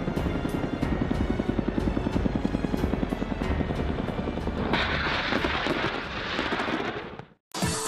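AH-1Z Viper attack helicopter's rotor beating steadily. About five seconds in, a loud rushing blast as live fire erupts on the target, fading away near the end.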